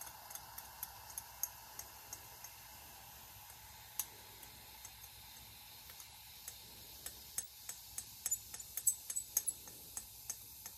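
Metal spatula tapping and scraping against a glass watch glass in light, sharp clicks, knocking the leftover baking soda off it. The clicks come only now and then at first and grow quicker and louder over the last few seconds.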